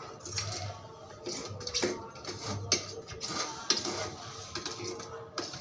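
Plumbing work: scattered knocks and clinks of pipe fittings and tools being handled, with a faint low hum in patches.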